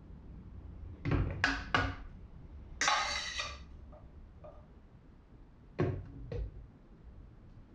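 A slotted spatula scraping and knocking against a stainless steel pot as cooked liver and vegetables fall into a plastic food processor jar. There are three quick knocks about a second in, a longer scrape around three seconds in, and two more knocks near six seconds.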